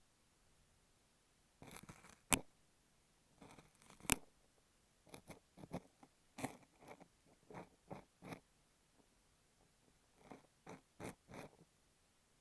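Close-miked, crunchy scraping and crackling of an ear pick working kinetic sand on an earphone microphone. It comes in short, irregular strokes with a few sharp clicks, and pauses briefly near the end.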